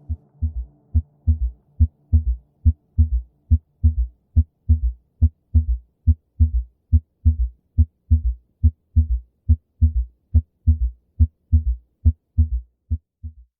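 Auscultation recording of heart sounds: the first, second and third heart sounds repeating beat after beat as a series of short, low thuds. The quiet, low-pitched third sound follows early after the second, giving a three-sound gallop rhythm.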